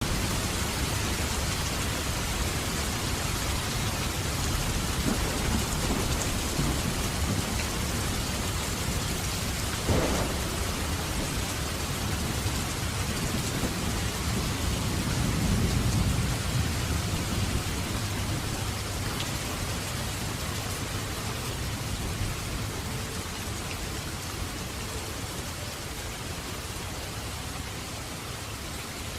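Heavy rain falling steadily, with a sharp thunderclap about ten seconds in and a low rumble of thunder around fifteen seconds; the rain eases slightly near the end.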